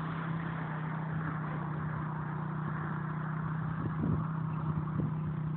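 Quad bike (ATV) engines running steadily with a low, even hum, heard from across a field, with a couple of faint knocks near the middle.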